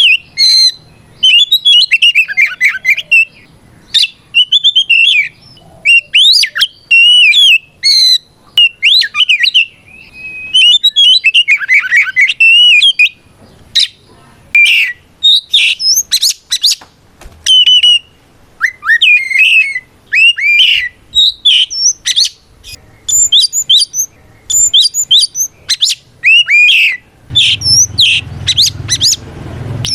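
Oriental magpie-robin singing loudly in a rapid, near-continuous run of varied whistles, chirps and sweeping notes broken by short pauses. This is the full fighting song of a male calling out rivals.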